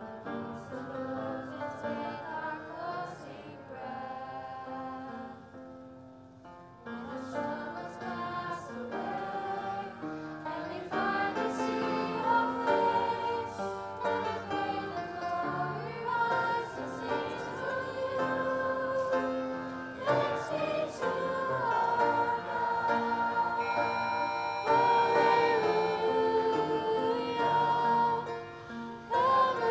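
Mixed-voice choir of teenage boys and girls singing together. It starts softly, then grows fuller and louder from about seven seconds in.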